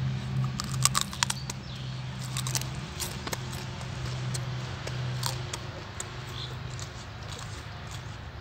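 Raw cauliflower being bitten and chewed close to the microphone: crisp crunching crackles, densest in the first few seconds and thinning out after, over a steady low hum.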